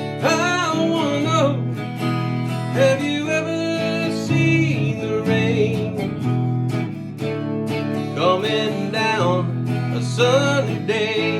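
Acoustic guitar strummed in a steady rhythm, with a sung melody over it in phrases near the start and again towards the end.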